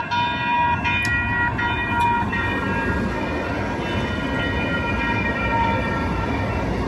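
Sacramento RT light rail train running close past along the platform, a steady low rumble from its wheels and motors. A high ringing tone with several pitches sounds over it, strongest in the first couple of seconds.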